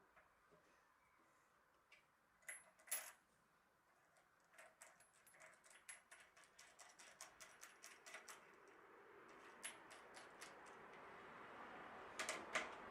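Mostly near silence, broken by faint sharp clicks and ticks, two of them about two and a half seconds in and then a long irregular run from about halfway, with a faint hiss building underneath toward the end.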